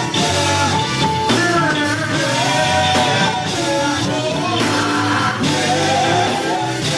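Live gospel band playing with electric guitar and drums while a voice sings over it.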